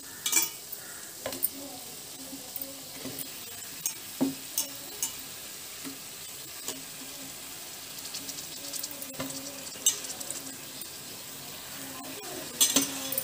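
Raw chicken pieces going into a hot metal kadai of fried masala and sizzling, while a spatula scrapes and knocks against the pan now and then.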